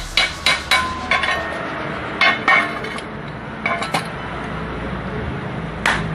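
Small hammer tapping on a steel motorcycle exhaust pipe with sharp metal clinks: a quick run of taps about three a second, then a few spaced taps.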